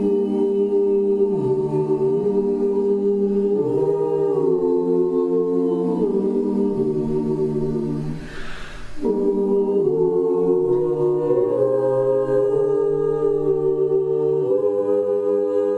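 High school choir singing a cappella, holding long chords that shift every few seconds. There is a short break for breath about halfway through.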